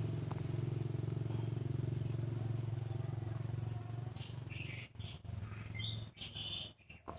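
An engine running steadily with a low hum, fading out and breaking up about five seconds in. A few short, high bird chirps come near the end.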